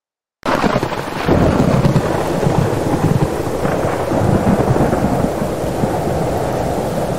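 Thunderstorm sound effect: heavy rain with low, rolling thunder. It starts abruptly out of silence about half a second in and stays loud.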